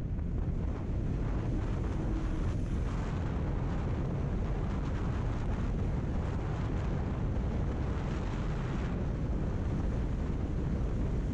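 Steady wind buffeting on the microphone of a motorcycle-mounted camera while riding at speed, a constant low rumble with the bike's road and engine noise under it.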